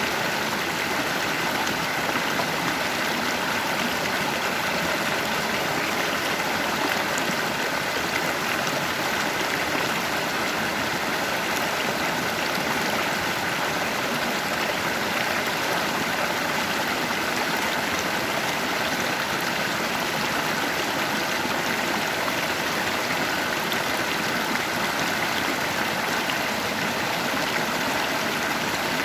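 Stream current flowing over rocks: a steady rushing of water with light gurgling, unchanging throughout.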